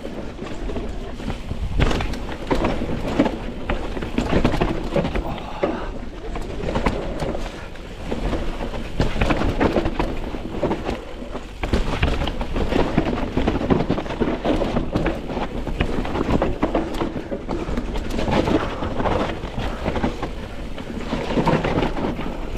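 Mountain bike riding down a rough dirt trail: tyres rumbling over the ground and the bike rattling, with frequent knocks over bumps.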